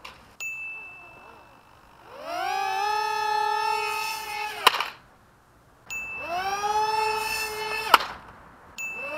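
Twin micro-drone (QX90) motors with small propellers spinning up to a high, steady whine on a foam-board flying wing. This happens twice, and each run ends in a sharp crack as the plane hits the paving. A third spin-up starts near the end.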